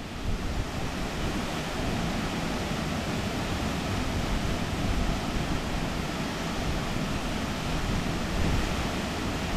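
Steady rushing of a waterfall's falling water.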